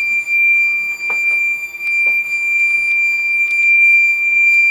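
Fire alarm sounder on a Gent Xenex system giving one steady, continuous high-pitched tone, set off again by a smoke detector reactivating during testing. A few light clicks sound over it.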